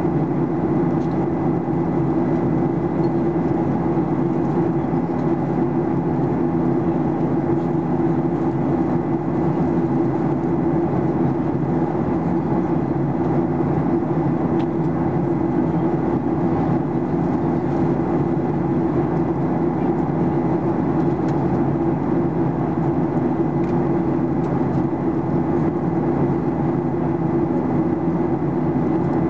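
Steady in-flight cabin noise of a Ryanair Boeing 737-800, heard from a window seat over the wing: the even drone of its CFM56-7B turbofan engines and airflow, with a thin steady whine above it.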